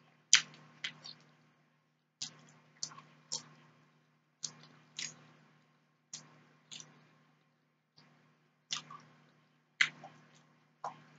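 Close-miked chewing of pork steak and rice: short, sharp mouth clicks and smacks in irregular clusters, about one to three a second with brief pauses.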